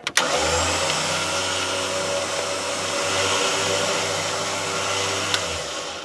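A vehicle's electric motor running steadily for about six seconds, with a low hum under a higher whir, fading out near the end.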